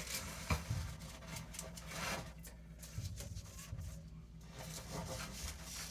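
Faint handling noise of a ratchet strap being drawn up on a PEX crimper: the strap webbing rubbing and scattered light clicks from the hooks and ratchet, with no steady rhythm.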